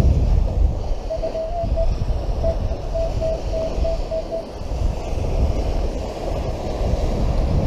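Wind buffeting the microphone, a steady low rumble. From about a second in until about halfway through, a string of short beeps at one steady pitch sounds over it.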